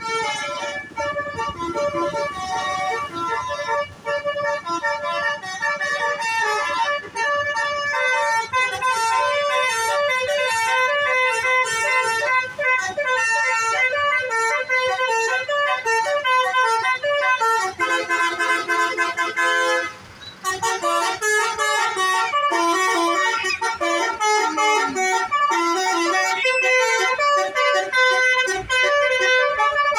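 A bus's 'basuri telolet' musical horn playing a tune: loud, pitched horn notes stepping one after another in a melody, with a brief break about two-thirds of the way through.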